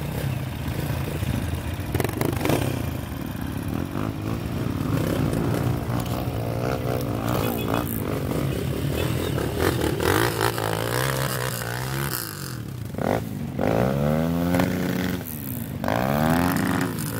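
Dirt bike engines running: at first a steady idle, then an engine revved up and down again and again, its pitch rising and falling in a series of sweeps through the second half, as a bike is worked through deep mud.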